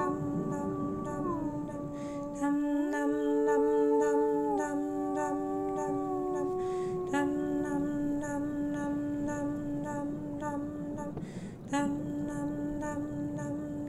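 Wordless soundtrack music of long held notes that slide from one pitch to the next, several sounding together, with a short break about three quarters of the way through.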